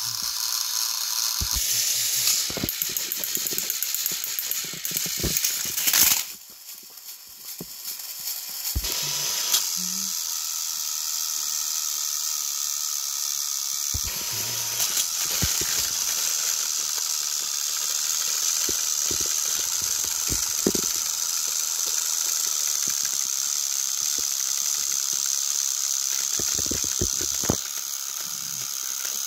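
Battery-powered Thomas & Friends toy engines running against each other on plastic track, their small geared motors whirring steadily with scattered clicks and rattles from wheels and couplings. The whirr drops away for a few seconds about six seconds in, then picks up again.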